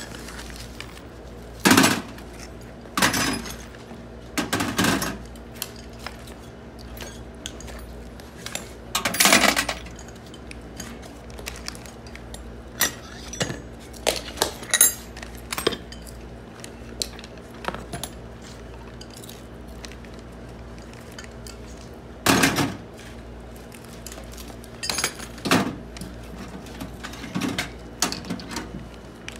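Metal clanks and clinks of a treadmill motor being taken apart by hand with a spanner, the housing and parts knocked and set down: about a dozen separate knocks with gaps between, over a faint steady hum.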